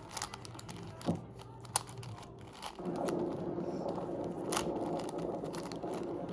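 Plastic Rubik's cube being turned by hand, its layers clicking as the cube is scrambled. A few separate clicks first, then about three seconds in the turning becomes a fast, continuous clatter.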